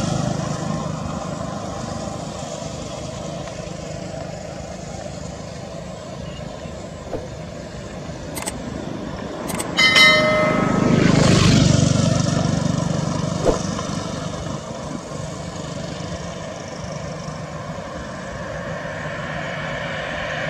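Airbus A320 jet engines running at low taxi power: a steady rushing hum that swells and fades once around the middle. About ten seconds in, a couple of clicks and a short bright chime, the sound effect of a subscribe-button animation.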